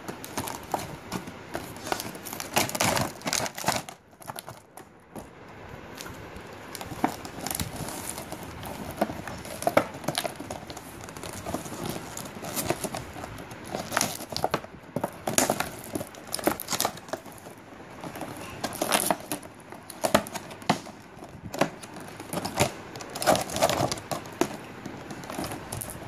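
Stiff clear plastic blister packaging being handled and pulled open, crinkling and crackling in irregular bursts, with a short lull about four seconds in.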